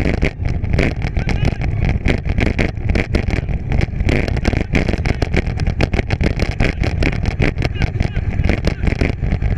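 Bike ridden fast over rough dirt trail behind pulling dogs: a steady low rumble of tyres and wind with constant rattling and clicking from the bike over the bumps.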